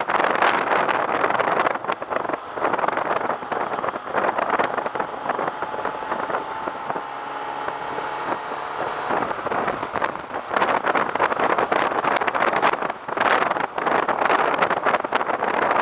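Wind rushing over the microphone of a moving motorcycle, with the Suzuki Bandit 1250's inline-four engine running underneath. The wind eases for a stretch in the middle, letting the engine's steady note through, and picks up again after about ten seconds.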